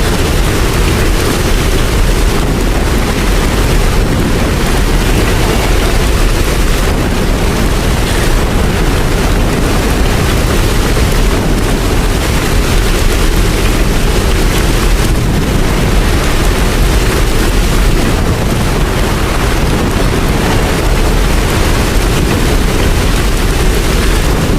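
Steady heavy rain: a dense, even hiss with a deep low rumble underneath.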